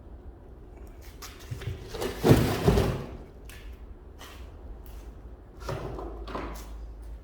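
Two heavy thumps a little over two seconds in, among lighter knocks and clicks as something is handled, over a steady low hum.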